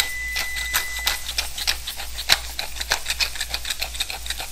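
Hand-turned pepper mill grinding peppercorns: a fast, steady run of dry crunching clicks.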